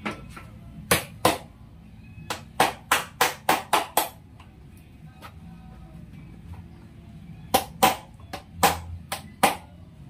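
Sharp knocks and taps in quick groups from hand work fitting the motorcycle's new rear fender and its clip fasteners: two about a second in, a fast run of about six around three seconds in, and another run near the end. Faint background music plays underneath.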